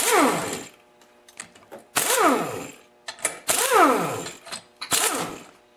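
Air impact wrench loosening cylinder head bolts in four short bursts, each trailing off as the motor winds down in pitch.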